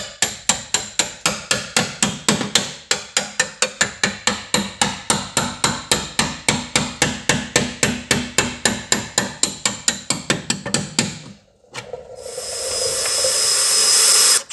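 Rapid, even hammer blows on the sheet steel of the body, about four a second, for some eleven seconds. After a short pause a drill runs into the steel, cutting out a spot weld, and grows louder until it stops abruptly near the end.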